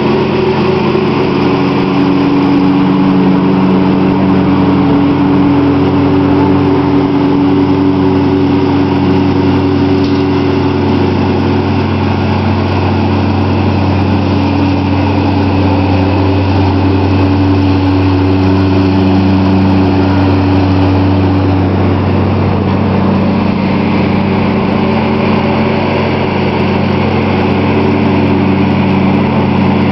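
Small engine of a John Deere riding lawn tractor running at a steady speed, with a low, even hum; its pitch shifts slightly about two-thirds of the way through.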